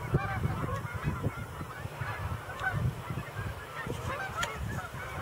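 A large flock of geese honking, many calls overlapping into a continuous chorus, with a low rumble underneath.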